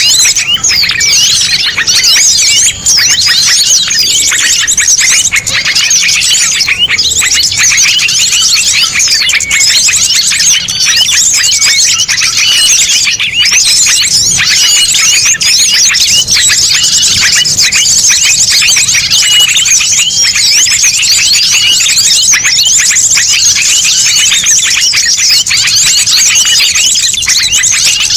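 Loud, dense chorus of many small songbirds chirping and twittering at once, without a break: a mixed small-bird lure recording.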